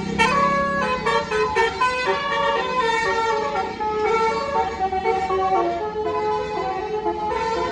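Basuri 'telolet' multi-tone bus horn playing a tune: a string of held horn notes stepping up and down in pitch, over the low rumble of the bus's engine.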